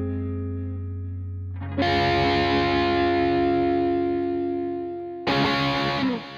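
Distorted electric guitar music: a held chord, a louder chord struck about two seconds in and left ringing, another struck near the end, then fading out.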